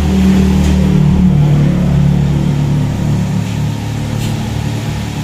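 A steady low mechanical hum, a little louder in the first couple of seconds.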